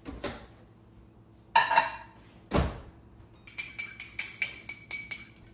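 Microwave door handled with a couple of knocks and a loud clunk, then a metal fork clinking against a small glass bowl, about five times a second with a ringing tone, as melted butter and heavy cream are stirred.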